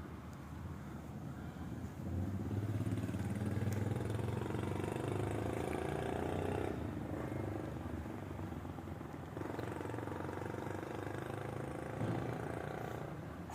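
A vehicle engine running and passing, loudest for a few seconds starting about two seconds in, then again later with a brief rise in pitch near the end.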